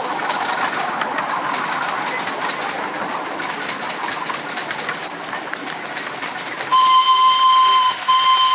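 Miniature 7¼-inch gauge steam locomotive running with a steady hiss of steam, then its steam whistle blown in two blasts near the end, a longer one and a shorter one, sounded for a whistle board.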